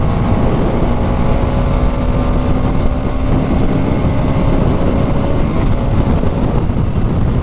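Bajaj Pulsar NS200's single-cylinder engine running steadily at high revs at highway speed, about 110 km/h. Heavy wind rush on the helmet-mounted mic runs underneath.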